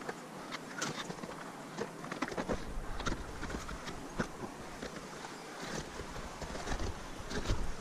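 Boots crunching and trekking-pole tips striking icy glacier snow while walking, a series of irregular sharp crunches and taps.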